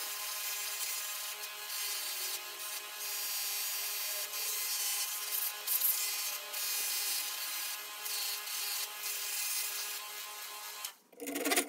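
Electric buffing motor running steadily while a ball peen hammer's steel head is pressed against the spinning buffing wheel charged with white rouge, the final polishing stage: a steady whir with rubbing that rises and falls as the head is worked against the wheel. It cuts off just before the end.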